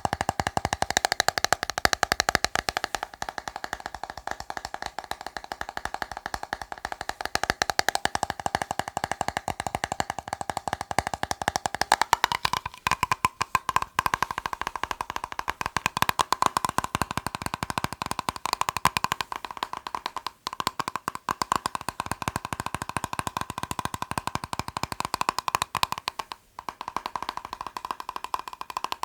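Fingers tapping rapidly on a plastic box: a dense, continuous run of quick taps with a steady ringing note from the box, broken by a few brief pauses about halfway through and later.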